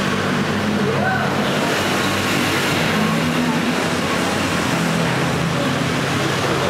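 Partner-dance music with held low notes that change about once a second, under a loud, even rushing noise.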